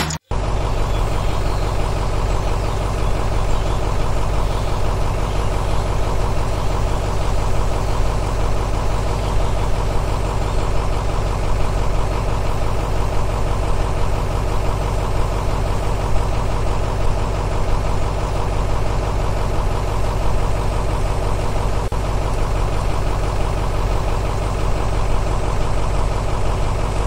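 A motor running steadily at constant speed, with a strong low hum and an even mechanical drone that does not change.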